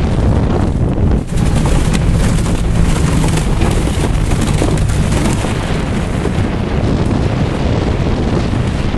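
Wind rushing into a car's cabin through a blown-out windshield and buffeting the microphone, loud and continuous, over the car's engine running as it is driven. Loudness dips briefly about a second in.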